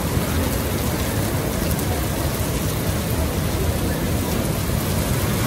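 Heavy storm rain falling steadily, with a deep, even rumble underneath.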